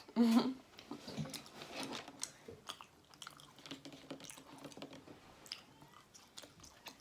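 Close-miked chewing of food: soft wet mouth clicks and smacks, scattered and irregular.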